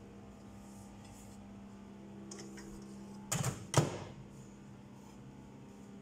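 A low steady hum, then two sharp clattering knocks about half a second apart, the second louder, as the microwaved pizza is taken out and handled on its plate.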